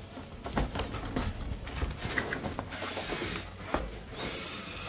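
Cardboard packaging box being opened and handled: the lid and flaps rub and scrape against each other, with scattered light knocks.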